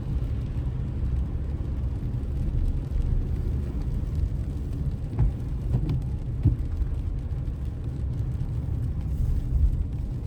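Steady low drone of a car's engine and tyres heard from inside the cabin while driving, with a few faint knocks partway through.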